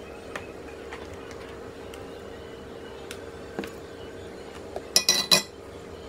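A kitchen knife ticks and scrapes against a disposable aluminium foil tray while slicing a set coconut pudding, with a few light clicks. Near the end comes a short burst of loud metallic clinks and clatter from the utensils. A faint steady hum runs underneath.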